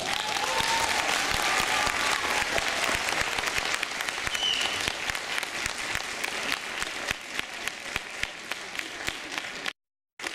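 Audience applauding: dense clapping that thins out into scattered single claps, with a brief dropout near the end.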